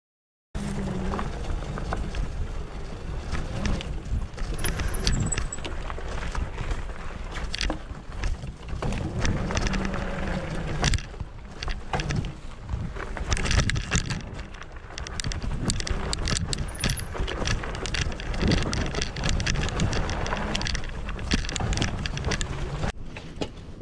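Mountain bike ridden fast over a rough dirt trail: tyre noise with constant rattling, clicks and knocks from the bike over bumps.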